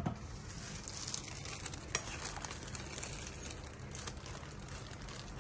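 Pot of beef sour soup simmering with a steady fine crackle and bubbling, and a wooden spoon stirring through the vegetables near the end.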